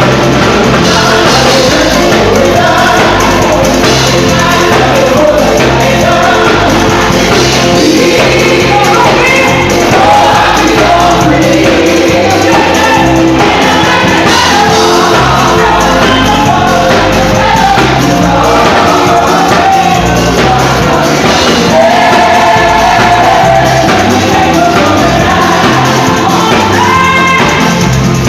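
Live gospel worship music: a band playing with singing over it, loud and continuous, with a steady repeating beat in the low end.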